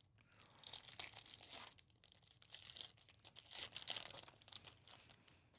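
Silver foil pack of Topps baseball cards being torn open and crinkled by hand, crackling in several uneven bursts.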